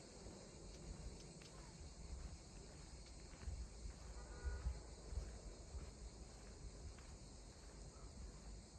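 Faint, steady chirring of crickets and other insects, under an uneven low rumble of wind on the microphone that swells around the middle. A brief pitched call sounds about halfway through.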